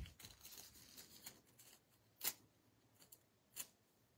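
Faint rustling of a sheet of nail-art transfer foil being pressed and rubbed onto a stamped nail tip with gloved fingers, with a few short crisp crackles, the clearest about two seconds in and again near the end.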